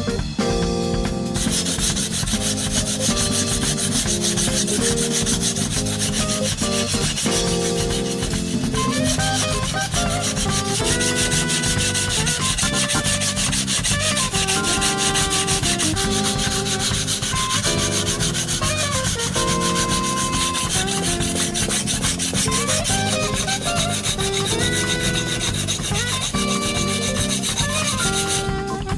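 Gyuto kitchen knife being ground down on a whetstone to thin an over-thick blade: continuous rapid scraping of steel on stone, starting about a second in and stopping just before the end. Background music plays throughout.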